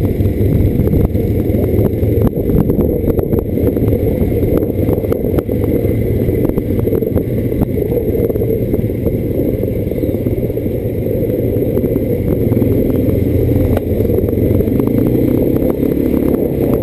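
ATV (quad bike) engine running at a steady cruising pace on a rough dirt road, with frequent small knocks and rattles from the bumpy ride.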